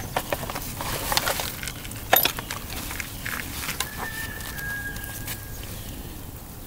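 Sharp, irregular clicks of a steel striker hitting chert, a flint-and-steel strike, in the first three seconds, loudest a little after two seconds in. Later a high, thin tone holds one pitch for about two seconds.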